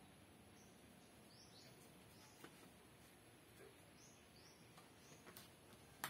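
Near silence: faint outdoor ambience with a few soft, short high bird chirps and occasional light clicks, with a sharper click near the end.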